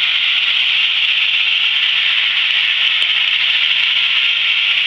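Steady, loud hiss from a handheld aviation radio receiving an open transmission: the pilot's push-to-talk button is stuck on, keeping his transmitter keyed.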